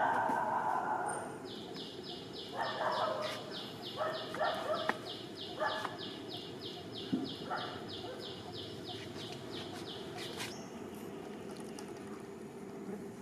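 Macaques making short noisy calls, several times. Behind them a high, rhythmic chirring pulses about three times a second, starting shortly after the beginning and stopping a few seconds before the end.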